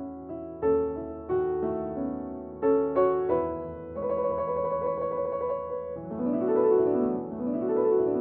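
Background piano music: struck chords for the first half, then quick rising and falling runs of notes from about six seconds in.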